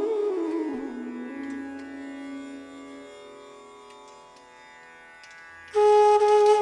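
Indian classical-style instrumental music. A bending melodic line over a drone fades down to a quiet held note, then a loud held note comes in near the end.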